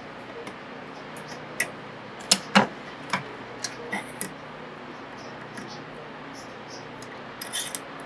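Small metallic clicks and taps as pen bushings and a pen blank are slid and pushed onto a steel pen-turning mandrel. The loudest pair of clicks comes about two and a half seconds in, with a short cluster near the end.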